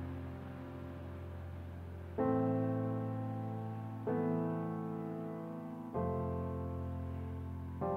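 Slow, gentle piano music: sustained chords, a new one struck about every two seconds and left to ring and fade.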